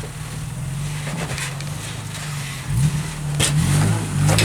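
Off-road vehicle's engine running at low speed while rock crawling, then revving up about two-thirds of the way through as it climbs the rock ledge. There is a sharp knock a little after the revving starts and another near the end.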